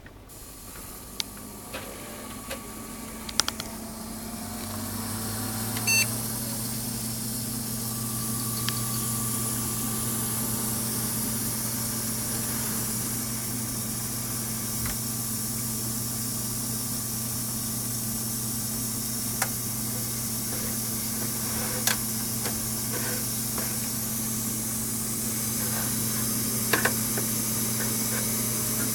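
Computer with a DFI LANPARTY UT nF4 SLI-DR Expert motherboard running, the board giving off a steady high hiss over the low hum of its fans. The hum rises over the first few seconds, a short beep sounds about six seconds in, and a few faint clicks follow.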